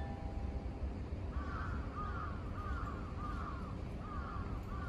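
A crow cawing over and over, starting about a second in, at roughly one and a half caws a second.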